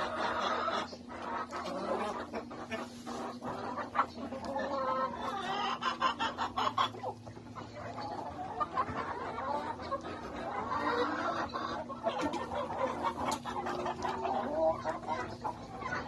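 A flock of Rhode Island Red, Barred Plymouth Rock and Black Australorp hens clucking and calling over one another, with scattered sharp clicks and a steady low hum underneath.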